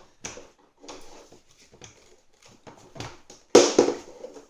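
Plastic parts of a vacuum cleaner being handled and clipped back together: a series of clicks and knocks, the loudest two coming close together about three and a half seconds in.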